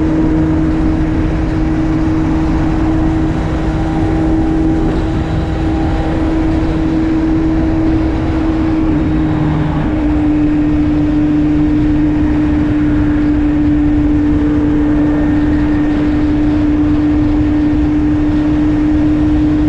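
Kawasaki Z750 inline-four with an Arrow slip-on exhaust running at a steady engine speed, its note held over a rough rumble. The pitch drops slightly about halfway through.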